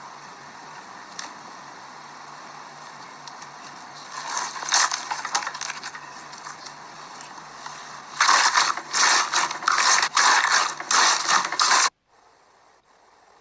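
Slime being squeezed and worked by hand, crackling and popping in dense bursts: once briefly about four seconds in, then louder for about four seconds before cutting off abruptly.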